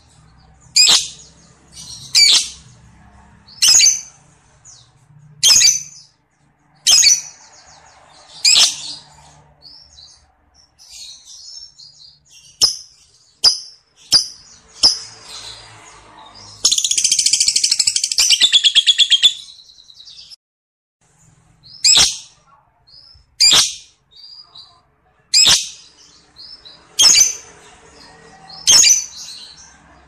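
Lovebird calling: loud, sharp, shrill chirps about every second and a half, with softer chirps and clicks in between. Just past the middle comes a long rapid trilling chatter, the 'ngekek', lasting about three and a half seconds, and then the sharp chirps resume.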